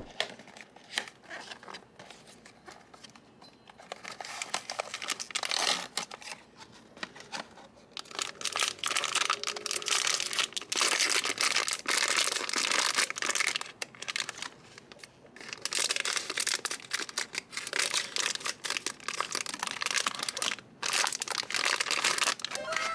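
Plastic and foil packaging being crinkled and torn open by hand as a blind box is unwrapped, in uneven bursts of rustling with short pauses.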